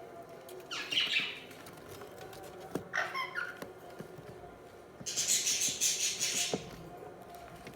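Budgies chirping: a short chirp about a second in, a quick run of chattering notes around three seconds in, then a longer harsh screech from about five seconds to nearly seven, with a few faint clicks in between.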